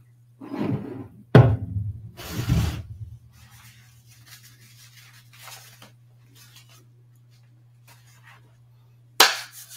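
A few sudden knocks and thumps, the loudest about a second and a half in and a sharp one near the end, with faint scattered rustling between them, over a steady low hum.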